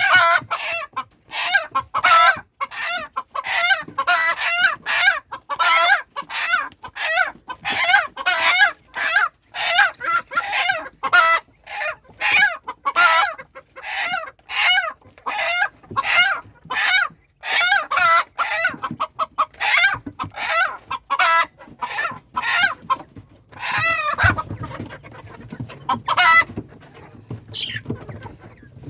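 Chickens clucking, loud calls coming one after another about twice a second, thinning out to a few scattered calls over a low rumble for the last few seconds.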